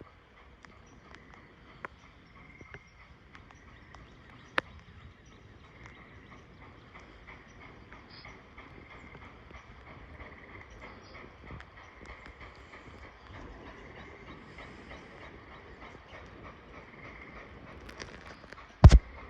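Light rain: scattered drops ticking sharply over a faint steady hiss, with a single loud thump near the end.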